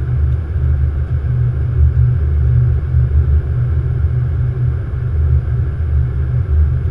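Steady low rumble on the flight deck of a Boeing 777 on short final approach: airflow and engine noise heard through the cockpit.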